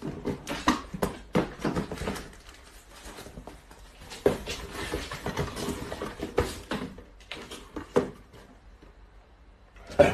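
Cardboard boxes being handled and set down on a tiled floor: a string of short knocks and rustles, with a louder knock near the end.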